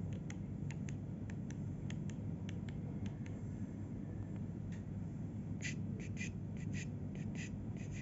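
Cockatiel making short, sharp clicks: a few scattered ones at first, then a quicker run of louder clicks over the last two seconds or so, over a steady low room hum.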